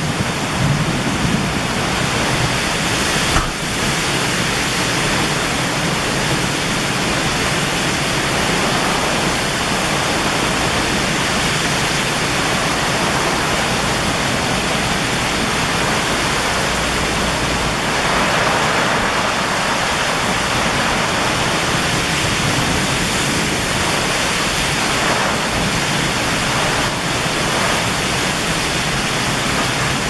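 Heavy thunderstorm rain and strong wind: a loud, steady, dense rushing hiss. A low rumble of thunder fades out in the first second.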